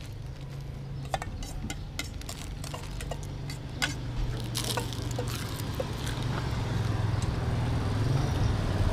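Small motorcycle engine idling with a steady low hum that grows louder, with scattered light clicks and clinks.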